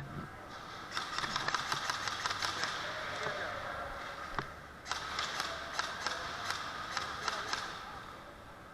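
Airsoft guns firing in two rapid bursts of sharp clicks, each lasting a couple of seconds.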